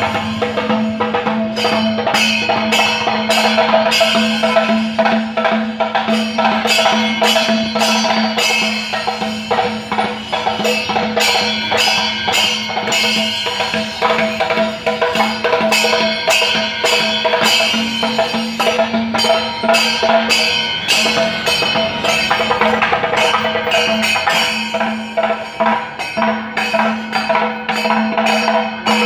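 Kerala temple percussion ensemble playing: drums and brass hand cymbals beating a fast, continuous rhythm, with a steady held tone underneath.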